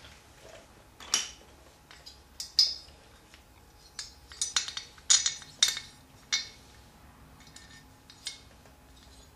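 Steel head bolts clinking against the mower engine's cylinder head and gasket as they are pushed through the bolt holes: a string of irregular sharp metallic clinks, about a dozen, loudest about two and a half and five seconds in.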